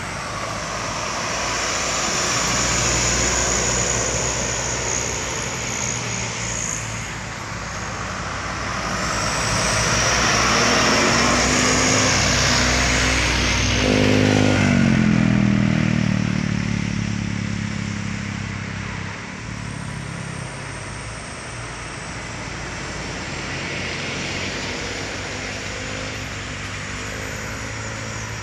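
Loaded sugarcane trucks driving through a bend at full throttle, their diesel engines running hard over tyre and road noise. About halfway through, one passes close, louder, and its engine note falls in pitch as it goes by.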